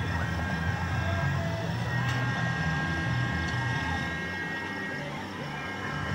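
Steady low mechanical rumble with a few faint steady whines above it: the drone of a carnival's ride machinery and generators.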